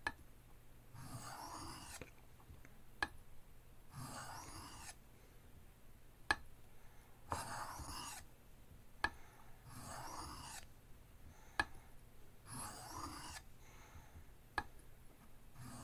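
Steel knife blade drawn slowly across an Arkansas oil stone: five rasping strokes about three seconds apart, with a short sharp click between strokes.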